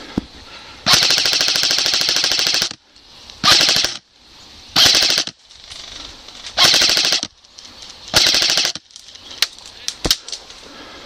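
Electric airsoft rifle firing on full auto: one long burst of about two seconds, then four short bursts. A few sharp single clicks follow near the end.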